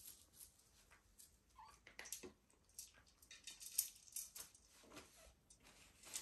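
Kittens play-fighting: soft scratches and patters of small paws and claws on a fleece blanket and tile floor, with one brief kitten squeak about one and a half seconds in.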